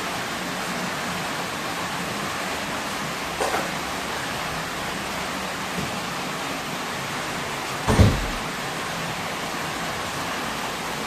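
Steady hiss of heavy pouring rain, with a single loud thump about eight seconds in and a fainter knock a few seconds earlier.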